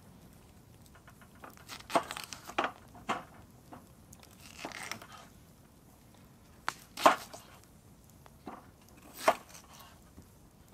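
Knife cutting peeled potatoes on a wooden chopping board: about six sharp chops at uneven intervals, the blade knocking through onto the board, the last two the loudest.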